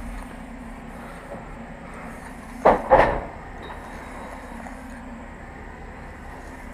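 Bricklaying work noise: two sharp knocks about a third of a second apart, roughly two and a half seconds in, over a steady low machine hum.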